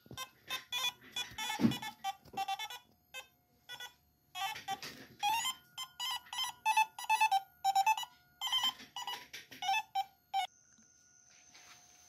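Rapid, irregular run of short, pitched electronic buzzes and beeps, several a second and of varying length, that stops abruptly near the end, over a faint steady high whine.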